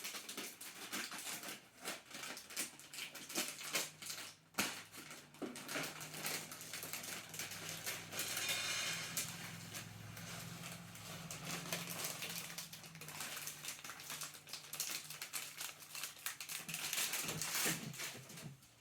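Kitchen handling noises: crinkling of packaging with many small irregular clicks and taps of dry food and utensils. A low steady hum runs through the middle stretch.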